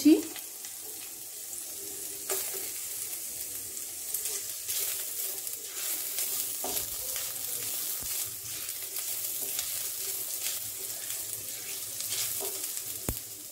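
Chopped ginger and green chilli sizzling in hot olive oil, turned down to a low flame, with a spatula stirring and scraping against the pan.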